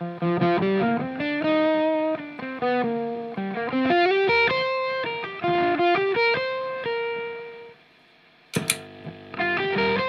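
Distorted electric guitar played at very low volume through an MXR Smart Gate noise gate, a slow melodic line of held notes and double stops. About eight seconds in the playing stops and the sound drops to near silence as the gate closes. A sharp click follows, then notes resume near the end.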